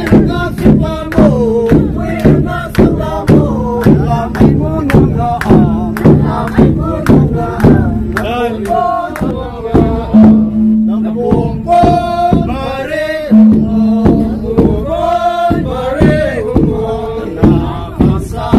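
Group of male voices chanting and singing in unison over a drum beating about twice a second, with long held notes between phrases; the drum beat thins out about halfway through.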